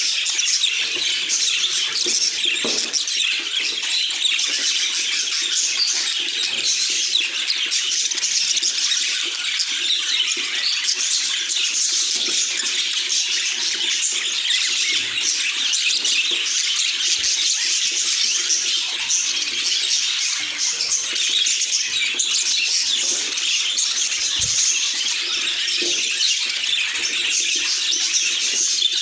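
Budgerigars chattering and warbling in a dense, unbroken stream of high chirps.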